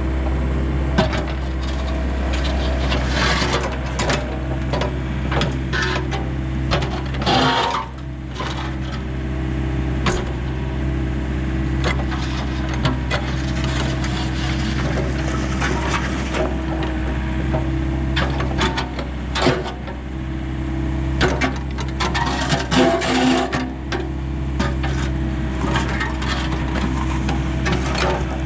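Excavator's engine running steadily while concrete rubble scrapes, knocks and cracks in repeated short clatters, heaviest in a few clusters.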